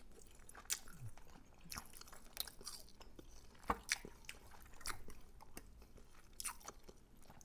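Close-miked chewing of air-fried salmon and grits, with wet mouth clicks at irregular moments.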